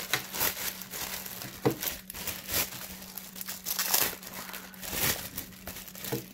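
Clear plastic bag crinkling and rustling in irregular crackles as a headset is worked out of it by hand.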